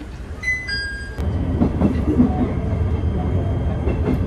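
Inside a train carriage: a brief electronic chime of a few clear tones, then a knock about a second in and a louder, steady low rumble of the train running.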